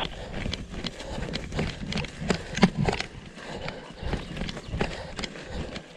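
Footsteps moving through forest undergrowth, with irregular thuds, twig snaps and brush rustling as the person walks along behind the tracking dog.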